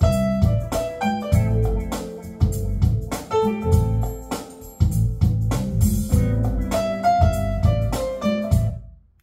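Smooth-jazz instrumental with keyboard or electric piano over bass and a steady drum beat, played back through a Sonos speaker for a sound test. It stops abruptly near the end.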